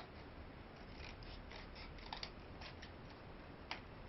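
Scissors cutting out dragonfly legs from a folded piece of cardboard: a series of faint, short snips.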